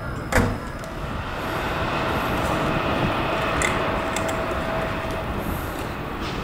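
Train running noise: a sharp knock about half a second in, then a steady rushing sound that swells and holds, with a faint steady hum under it until near the end.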